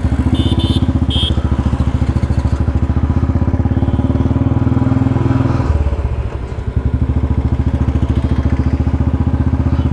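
Royal Enfield Bullet's single-cylinder engine thumping steadily as the bike pulls away and rides along. It eases off briefly just past the middle, then picks up again. Two short high beeps sound about a second in.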